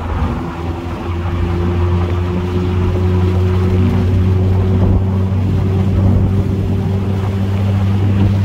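2021 Mazda Miata's 2.0-litre four-cylinder engine and exhaust running at a steady pitch while the car is driven, heard from inside the open-top cabin; the note dips briefly about half a second in.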